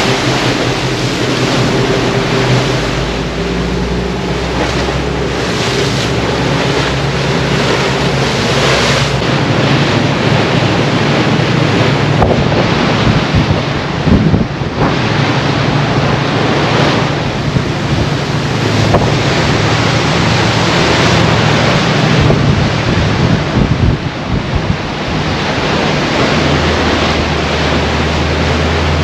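Pilot boat running at speed: the rush of its bow wave and spray and heavy wind buffeting on the microphone, over a steady low engine drone.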